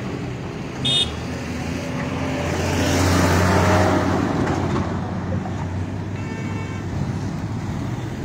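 Heavy road traffic passing close: a short horn toot about a second in, then a tanker truck's engine and tyres swell loudest as it drives past around the middle, over a steady low engine hum.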